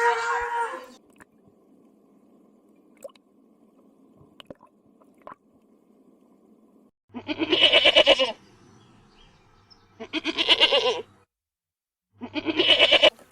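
Livestock bleating three times, each call about a second long with a wavering, pulsing quality. Before the bleats, the end of a cow's moo fades out about a second in.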